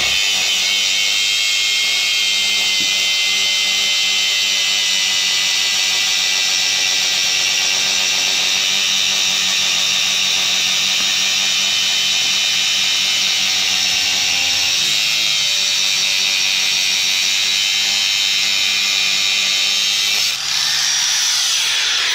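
Electric angle grinder running continuously with a loud, steady high-pitched whine. Its pitch wavers about two-thirds of the way through and sweeps near the end.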